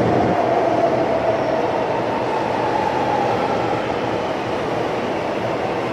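Metro train running through an underground station: a loud, steady rumble and rush with a faint whine in the first few seconds, slowly getting quieter as it moves away.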